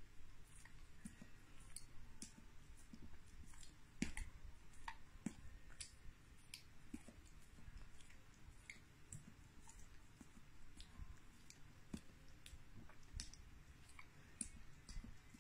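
A dog licking peanut butter off its nose: faint, irregular wet clicks and smacks of tongue and lips, about one or two a second, the sharpest about four and five seconds in.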